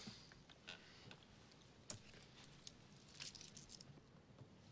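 Near silence with a few faint, short clicks and small handling sounds: one about a second in, one near two seconds, and a small cluster a little later.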